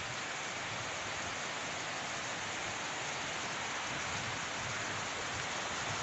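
Fast-flowing stream rushing over rocks: a steady, even hiss of running water.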